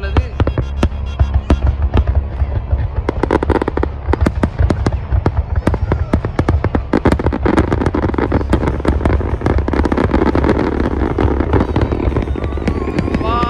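Fireworks display: a dense run of sharp cracks and bangs, many a second, over a steady low rumble.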